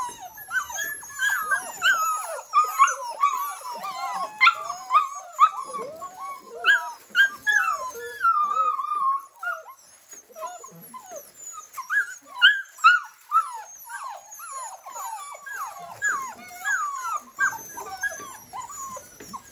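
A litter of seven-week-old Australian Labradoodle puppies whining together: many short cries bending up and down in pitch, overlapping, with a couple of brief lulls.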